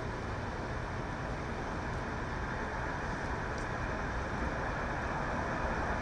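Steady street background noise: a low, even traffic rumble.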